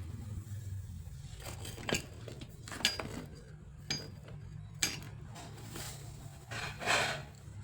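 Metal parts and tools clinking and knocking: four sharp taps roughly a second apart, then a longer scraping clatter near the end, over a steady low hum.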